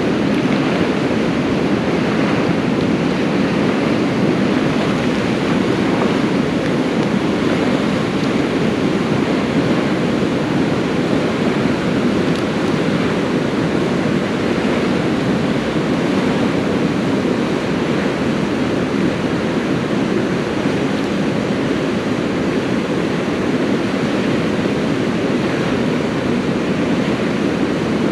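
Steady, even rush of flowing creek water.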